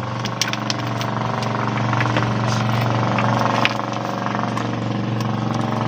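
A small engine running steadily, a constant low hum with a few light clicks and knocks over it.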